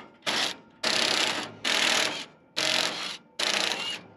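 Cordless Kobalt impact driver hammering in five short bursts of about half a second each, driving a screwdriver bit to turn out a long rusty slotted bolt.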